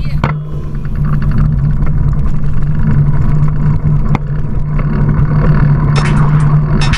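Steady low rumble of riding through city traffic on a bicycle: wind buffeting the handlebar-mounted camera's microphone, mixed with passing car engines, with a few short hisses near the end.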